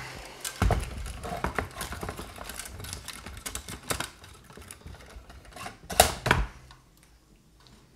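Small wire bird cage rattling and clicking as a hand reaches inside to catch the bird: an irregular run of light knocks and clatters, with a sharper knock about six seconds in.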